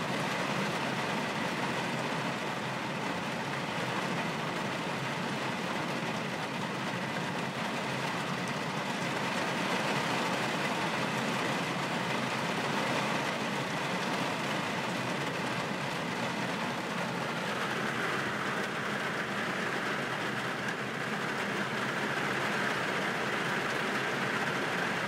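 A car driving in the rain: steady road and tyre noise with a faint steady whine over it.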